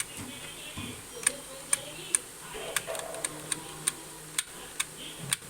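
Keys being pressed on a computer keyboard: sharp, crisp clicks at an irregular pace of about two to three a second.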